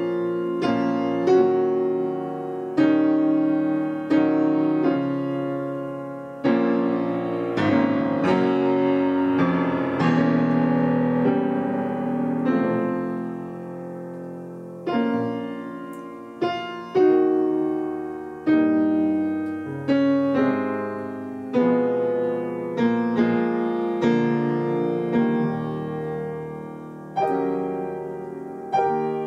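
Acoustic piano played: a slow, expressive passage of chords and melody notes, each chord struck and left to ring and fade before the next.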